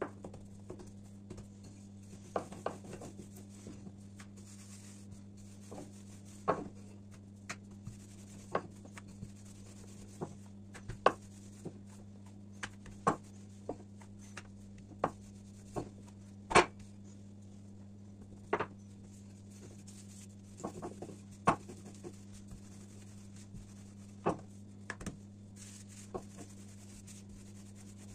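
Hands working lavash dough on a countertop: irregular soft taps and knocks every second or two, over a steady low hum.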